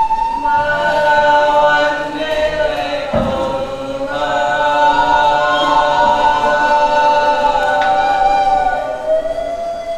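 Slow dance accompaniment music of chanting voices, several held notes layered together and gliding gently in pitch, with a single low thump about three seconds in.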